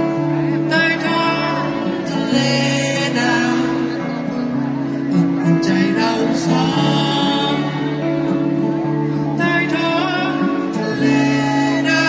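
Live acoustic band playing: several acoustic guitars strumming chords, with a voice singing over them through the PA.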